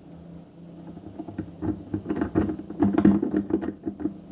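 Euro cylinder lock being picked with a tension wrench and a single pick: rapid, irregular small clicks and rattles of the pick working the pins. The clicking starts about a second in and grows busier.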